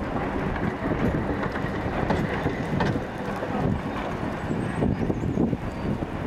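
A train of passenger coaches rolling past on the rails, the wheels rumbling and knocking at irregular intervals, with wind buffeting the microphone.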